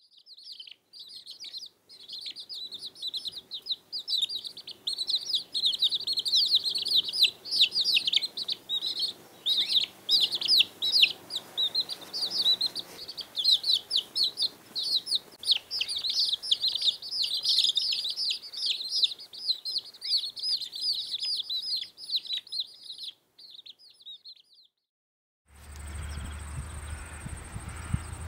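A brood of quail chicks peeping: a dense, constant stream of quick, high-pitched chirps from many chicks at once. Near the end the chirping stops, and a steady low rumble with a thin high whine takes over.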